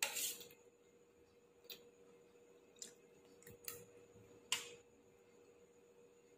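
Eating sounds: a handful of short, sharp clicks and taps, the loudest right at the start and about four and a half seconds in.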